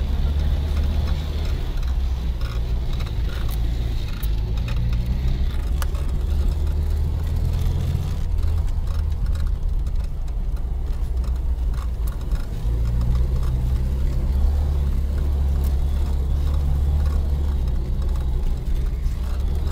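UAZ-469 off-roader's engine running under load as it drives over rough ground, a steady low drone that eases off about eight seconds in and picks up again about four seconds later. Scattered knocks and rattles are heard throughout.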